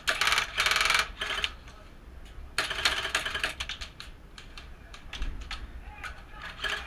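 Airsoft guns firing in rapid bursts of sharp clicks: one loud burst in the first second, another about two and a half seconds in, then scattered single shots.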